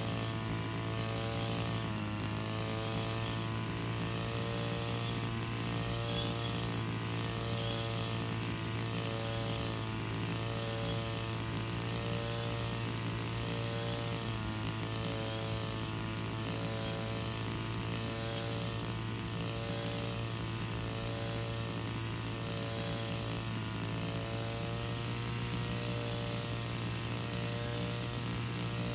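Engine-powered brush cutter running steadily while cutting grass, its engine note dipping briefly as the blade bites into thicker growth, clearly about two seconds in and again around the middle.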